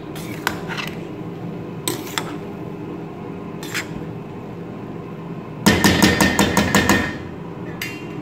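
Metal spoon clinking and scraping in a stainless steel pot of cooked rice as the rice is fluffed: a few scattered clinks, then a quick run of about ten sharp metal taps on the pot a little past halfway, the loudest part.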